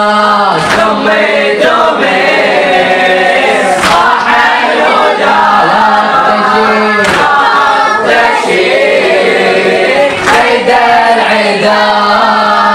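A group of boys chanting a Shia latmiya (Husayni mourning elegy) together in chorus, unaccompanied, at full voice. A sharp chest-beating strike comes in time about every three seconds.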